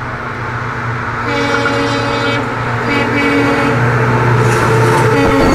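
EMD diesel locomotive approaching with its engine drone growing louder, sounding its horn twice: a longer blast about a second in, then a short one.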